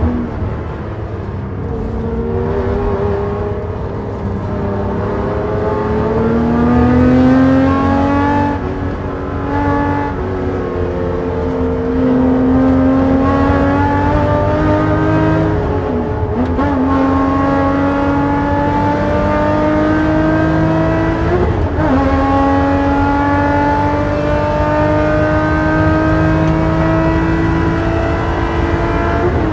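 Porsche race car's engine, heard from inside the cockpit, accelerating hard under full throttle. Its pitch climbs and drops back at upshifts about 8, 16 and 21 seconds in, then rises steadily through the last gear.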